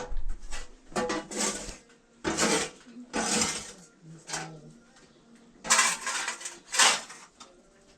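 A series of about five short scraping, clattering strokes from tools working a wood-fired bread oven, with gaps of about a second between them.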